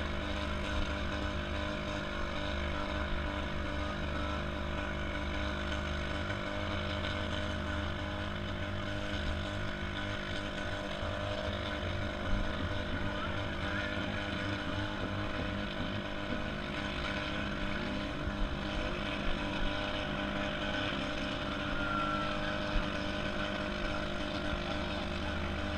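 Demolition derby car engines running steadily, with a few short knocks.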